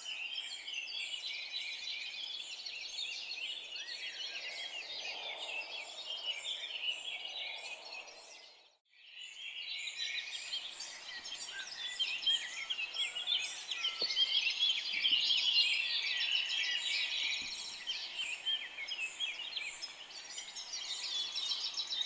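Many small birds chirping and twittering continuously. The chirping fades out briefly near the middle and comes back, with a few faint knocks in the second half.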